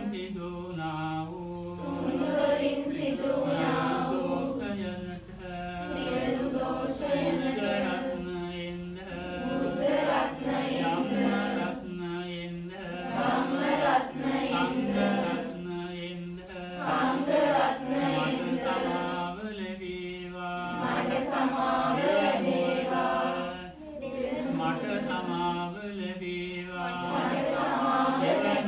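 Buddhist devotional chanting by a group of voices together, in phrases held on a few steady notes, with a short break for breath every three to four seconds.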